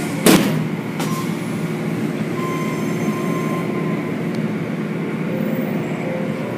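Automatic tunnel car wash heard from inside the car: a steady rumble of water spray and wash machinery against the body and windshield. There is a sharp hit about a third of a second in.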